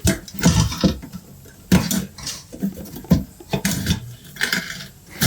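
Metal clicks and clanks of a screwdriver and loose parts being worked inside an opened rice cooker: about eight short, sharp knocks at uneven intervals.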